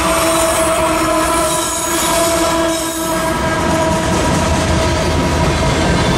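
Freight train passing close by: the last of its diesel locomotives and then a boxcar and a line of tank cars roll past with continuous wheel and rail noise. A steady high tone sounds over it and fades after about three seconds.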